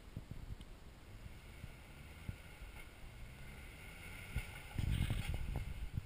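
Toyota Tacoma pickup's engine heard faintly as a low rumble while it crawls over boulders, mixed with wind buffeting the microphone; the rumble swells louder for about a second near the end.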